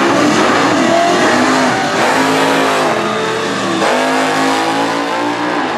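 Two drag cars, one an HB Holden Torana, accelerating at full throttle down the strip after a wheelstanding launch. The engine note climbs, drops and climbs again at gear changes about two and four seconds in.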